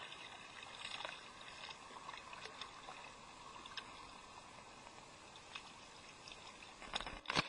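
Water lapping and trickling against a kayak hull, with scattered faint clicks. A louder rush of noise comes near the end.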